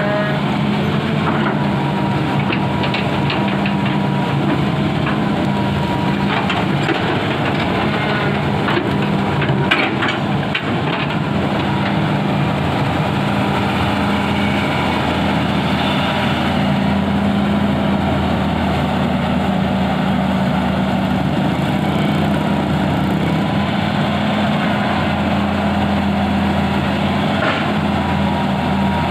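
Hitachi excavator's diesel engine running steadily, with a few short clattering knocks around seven to ten seconds in.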